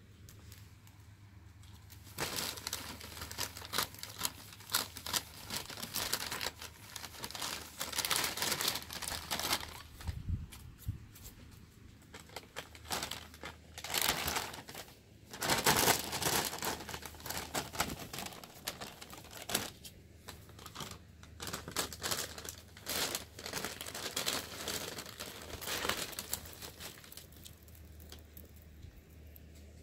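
Thin plastic shopping bag crinkling and rustling in irregular bursts as a ferret burrows and wriggles inside it. The rustling starts a couple of seconds in, is loudest around the middle and dies away just before the end.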